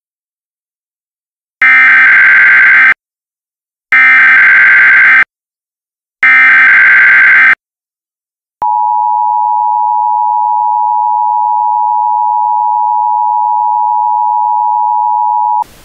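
Emergency Alert System SAME header: three short, loud bursts of shrill data tones about a second apart, then the EAS two-tone attention signal held steady for about seven seconds before cutting off. It opens a flash flood warning.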